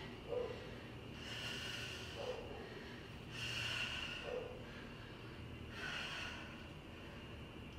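A woman breathing hard with the effort of kettlebell goblet squats: three long, forceful exhales about two seconds apart, each with a short sharp breath between.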